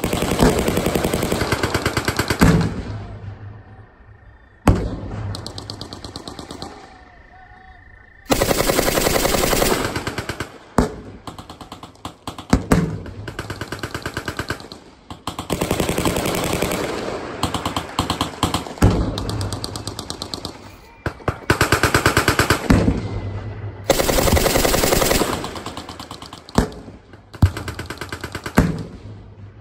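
Machine guns firing long automatic bursts of two to three seconds each, one after another, with a few single sharp bangs in the gaps between.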